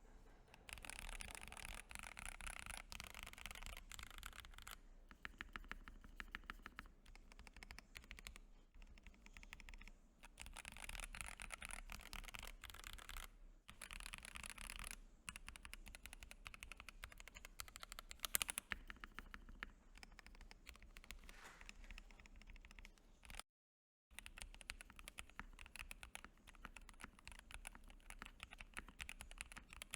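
Typing on a Keydous NJ80 mechanical keyboard with light TTC Gold Pink linear switches and a brass plate: a fast, fairly faint run of keystroke clacks, with a short break about three-quarters of the way through.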